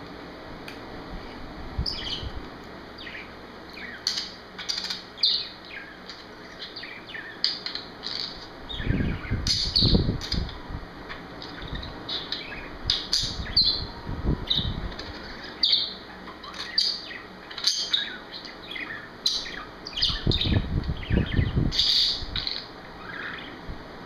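Pet budgerigar warbling: a long, chattering run of short chirps and quick warbled notes. Gusts of fan wind rumble on the microphone a few times.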